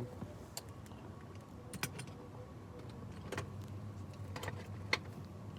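Faint, scattered light clicks and clinks of small hand tools being handled, about six over a few seconds, over a low steady hum.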